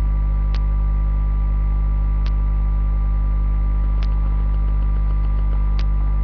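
Steady electrical mains hum, loud and low, with a faint sharp tick repeating about every two seconds.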